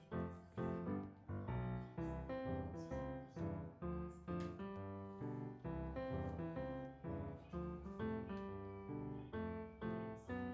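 Background music: a piano-led tune with a steady beat, notes struck about twice a second.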